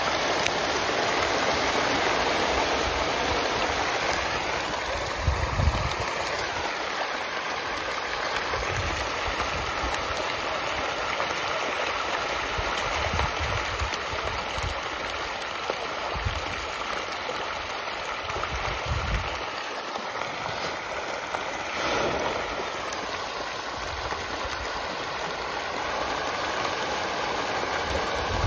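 Hundreds of farmed fish thrashing and splashing at the pond surface in a feeding frenzy on thrown feed pellets: a steady, dense rushing wash of water, with occasional deep thumps.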